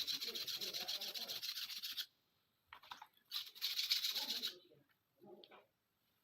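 Rapid back-and-forth rubbing strokes of hand scrubbing on a pistol part, in a spell of about two seconds, then a short pause and a second spell of about a second.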